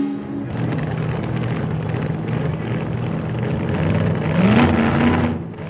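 A steady engine- or motor-like running sound that rises in pitch about four and a half seconds in and settles at the higher pitch.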